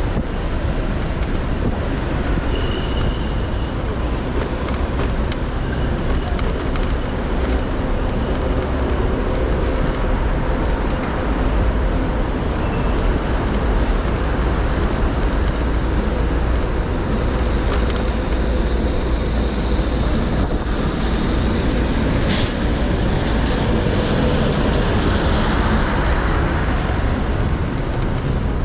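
Steady city traffic and road noise from a car driving, with a strong low rumble. A higher hiss swells from about 17 seconds in and fades near the end, and a single sharp click comes about 22 seconds in.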